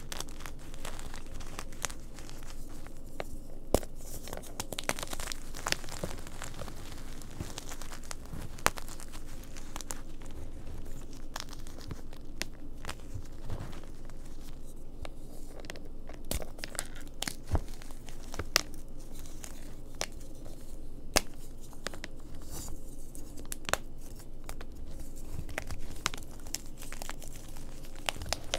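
Blocks of gym chalk (magnesium carbonate) being squeezed and crumbled between the fingers: a dry, crunchy crumbling with sharp snaps every second or two as chunks break off.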